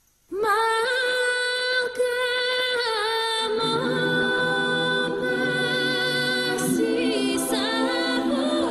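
Vocal music: a single high voice holds a long sung note, and lower voices come in underneath with a held drone about three and a half seconds in.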